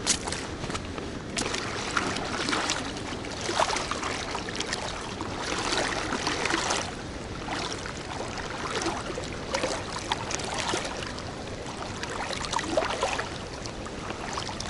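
Oars dipping and pulling through water as a small boat is rowed: splashing and trickling strokes that swell every second or two over the steady wash of water.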